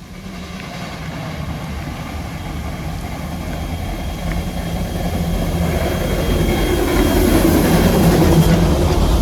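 Narrow-gauge steam train approaching, its low rumble growing steadily louder.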